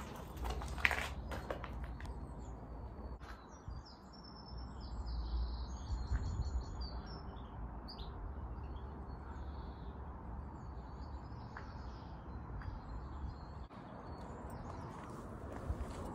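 Small birds chirping and twittering in short, scattered calls over a low, steady rumble, with a few sharp knocks near the start.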